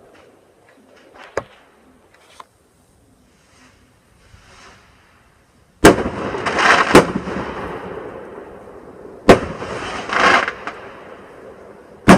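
Fireworks going off: a couple of faint pops in the first few seconds, then loud bangs about six, seven, nine and twelve seconds in, each trailing off in a crackling, fading tail.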